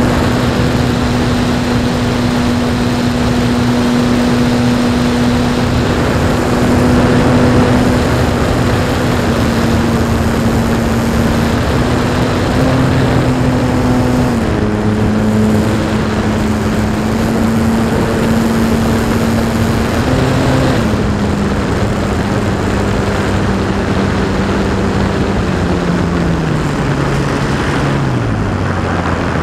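Radio-controlled Pitts Special model biplane's motor and propeller, heard from a camera on board, a steady hum over rushing airflow. The pitch steps down twice and then glides lower near the end as the throttle is eased back with the plane low over the ground.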